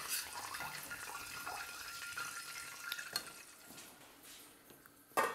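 Hot oil sizzling faintly in a small stainless pan after frying capers, with a few light clinks of a metal spoon. Near the end, one sharp metallic clink with a short ring, as the lid of a stainless stock pot is lifted.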